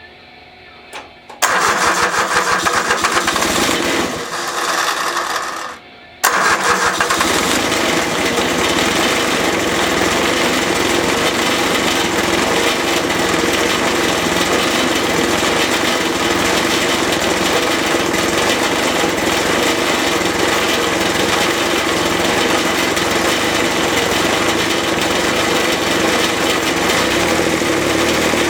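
Kubota D722 three-cylinder diesel on a Grasshopper mower being cranked by its starter for about four seconds, then, after a short stop, starting and running steadily. This is the first run after the injector pump's leaking O-ring was resealed.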